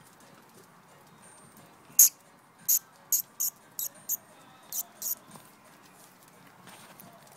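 Young puppies scuffling on concrete: a string of about eight short, sharp scratchy bursts over about three seconds, the first and loudest about two seconds in.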